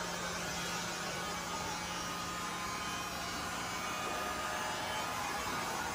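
Steady machine hum in a cruise ship cabin, with a constant low tone under an even hiss.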